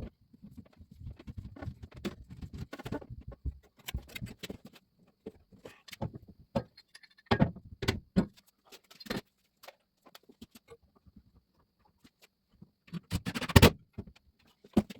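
Irregular clicks, knocks and rustling of things being handled, with a cluster of louder knocks near the end.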